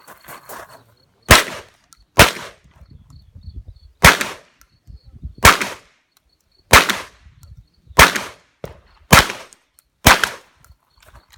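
Shotgun firing eight single shots at an irregular pace, roughly one to two seconds apart, each a sharp crack with a short ringing tail, with faint handling noise between shots.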